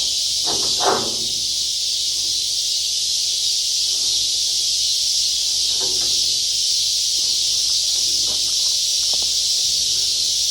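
Steady, loud outdoor insect chorus, a high continuous buzzing hiss, with a few faint knocks about a second in and again later on.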